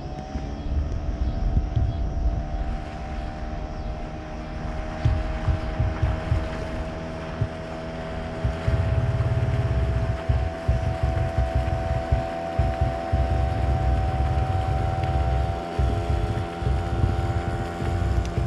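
Hangkai 6 hp outboard on an inflatable dinghy running at speed up on plane: a steady engine drone whose pitch rises a little at first and then holds. Wind buffets the microphone with low rumbling gusts throughout.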